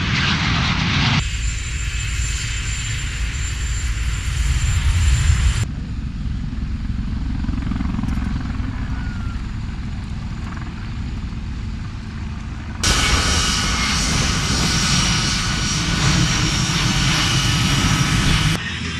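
Aircraft engine noise from several clips spliced together, changing abruptly about a second in, again at about six and at about thirteen seconds, and just before the end; the louder stretches carry a steady high whine over a deep rumble.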